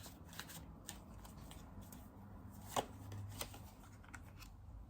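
Tarot cards being handled: faint rustling and light flicks of the cards, with one sharper snap a little under three seconds in.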